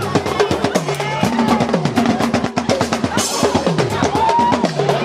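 A drumming group playing a fast, dense rhythm on bass and snare drums, with pitched sounds sliding down again and again over the beat.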